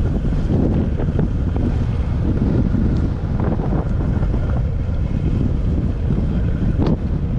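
Wind buffeting the microphone: a loud, steady low rumble, with a few faint clicks, one just before the end.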